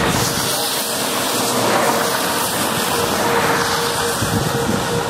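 Steady rushing wind on the microphone in strong storm inflow, with a faint steady hum underneath.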